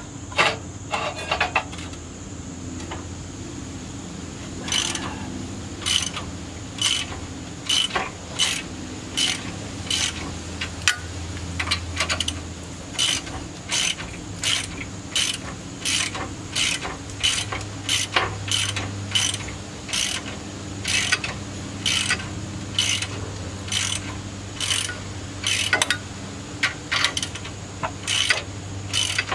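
Ratchet wrench being worked in steady strokes, clicking about once a second, turning the threaded rod of a coil-spring compressor on a Land Rover Discovery 2's rear coil spring.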